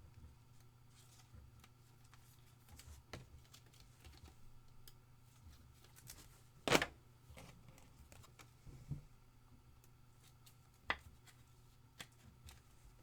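Faint handling of trading cards on a table: soft rustles and slides with a few sharp clicks, the loudest about seven seconds in, over a low steady room hum.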